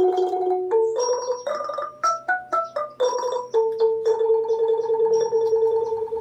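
Background instrumental music: a keyboard melody of short stepping notes with a quick rising run, ending on one long held note.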